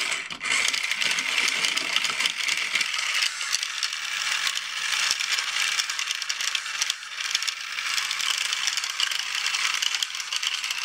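Sugar being stirred into water in a small plastic cup: a utensil rattles and scrapes against the cup's sides in a continuous fast clatter, dissolving the sugar.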